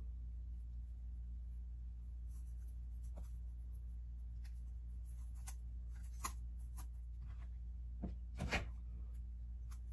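Faint rustling and soft clicks of hands working dry craft moss and handling a foam wreath centre covered in Easter eggs, over a steady low hum.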